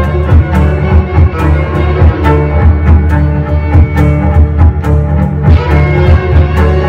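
Live trio of violin, cello and cajón playing an upbeat piece: bowed violin and cello lines over a strong low cello part, with the cajón striking a steady beat.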